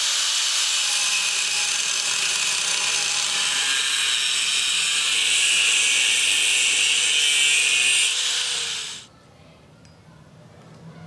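Angle grinder with a thin abrasive disc grinding into the steel of a hammer head: a steady, high-pitched grinding that stops suddenly about nine seconds in.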